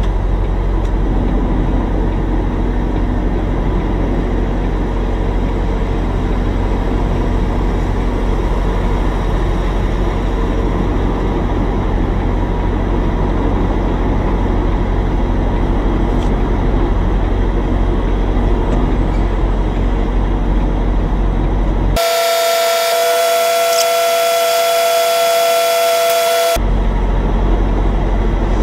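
Steady low rumble of a semi truck's diesel engine, heard from inside the cab while the rig creeps along. About 22 seconds in, the rumble cuts out abruptly and a loud horn blast sounds on several steady pitches for about four and a half seconds. Then the engine rumble returns.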